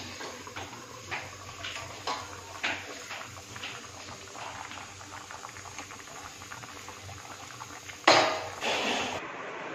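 Water boiling in a steel kadhai of faras, bubbling with many small pops and clicks. A sudden louder rush of noise comes about eight seconds in.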